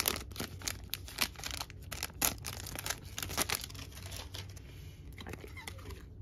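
Foil Pokémon TCG Celebrations booster pack wrapper being torn open and crinkled: a dense run of sharp crackles that thins out after about three and a half seconds. Near the end come fainter rustles as the cards are handled.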